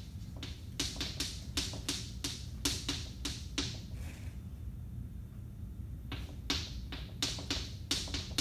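Chalk on a chalkboard as words are written: a quick, irregular run of short taps and scratches, pausing for about two seconds midway.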